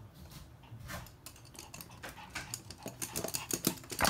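Toy poodles' claws clicking and tapping on a hard glossy floor as they walk and trot about, a scatter of light ticks that comes quicker and louder near the end.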